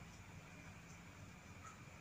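Near silence: faint room tone with a steady low hum and one faint tick near the end.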